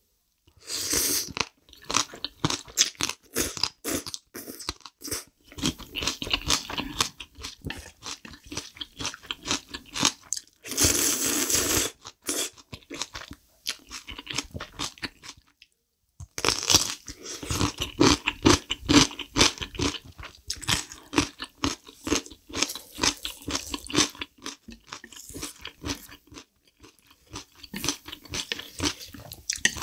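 Close-miked wet chewing and crunching of spicy black bean instant noodles with kimchi, mouthful after mouthful in an irregular run of crackles. A louder, longer noodle slurp comes about eleven seconds in, and another shortly after sixteen seconds.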